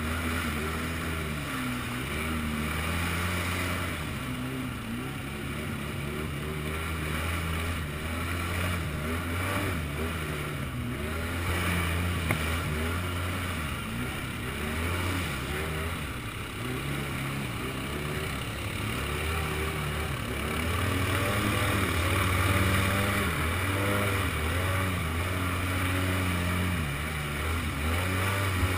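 Polaris Sportsman ATV engine running under way, its pitch rising and falling as the throttle is opened and eased off again and again.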